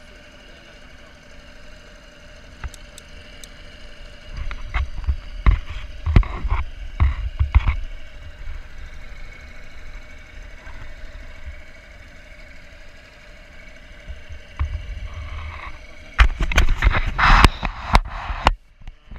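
Outboard motor running slowly at trolling speed, a steady low hum. Bursts of low rumbling with sharp knocks come in about four to eight seconds in and again near the end.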